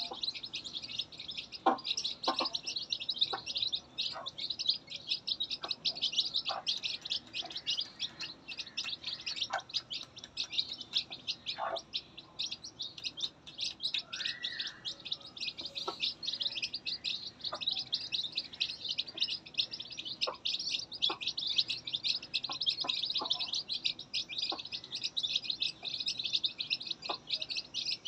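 Newly hatched chicks peeping continuously in a dense, rapid, high-pitched chorus. A dozen or so soft taps are scattered through it.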